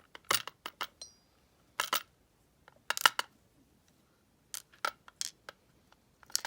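Small brass lock pins and metal tools clicking and clinking against a pinning tray: a few quick clusters of sharp taps, the loudest about three seconds in.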